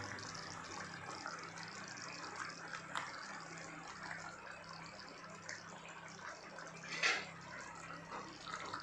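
Thick curry gravy simmering in an open pan, its surface bubbling and popping softly, with a louder pop about seven seconds in.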